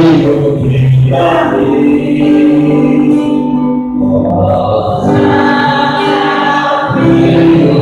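Many voices singing a hymn together, in long held notes that change pitch about once a second.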